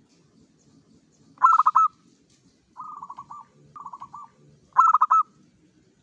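Zebra dove (perkutut) cooing: four short phrases, each a quick run of several coos. The first and last phrases are loud, and the two in between are fainter and slightly lower.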